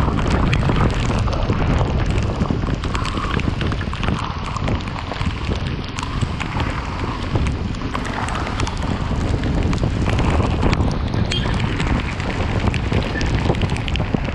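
Wind rushing over the microphone of a rider on the move in rain, with many sharp ticks of raindrops striking it throughout.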